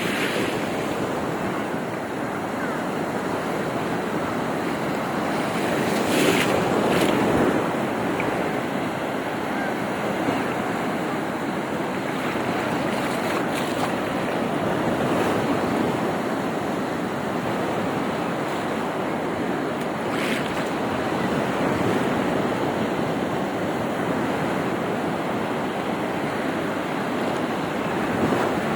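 Rough sea: waves surging and breaking continuously, with a louder surge about six seconds in. Wind buffets the microphone.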